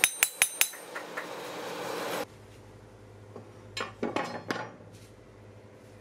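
Ball-peen hammer striking a strip of leaf-spring steel on an anvil: four quick ringing blows, then two lighter taps. After about two seconds it turns quieter, with a few short metallic clinks of steel bars being set down on a wooden table around four seconds in.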